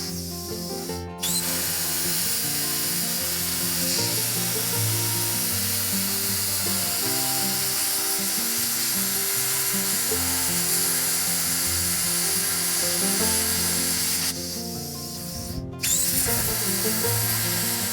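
Plasma cutter cutting half-inch steel plate, a steady hiss that starts about a second in and cuts out for about a second near the end before starting again. Background music with a stepped melody plays throughout.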